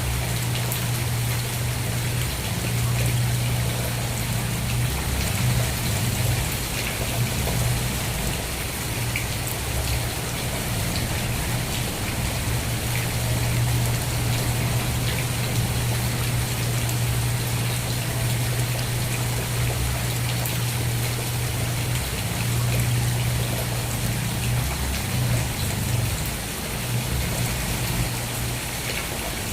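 Steady rain falling, a continuous patter of drops on a surface, with a steady low hum underneath.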